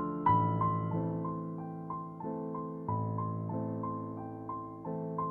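Background piano music: a melody of single notes, each fading after it is struck, over lower chords that change every second or so.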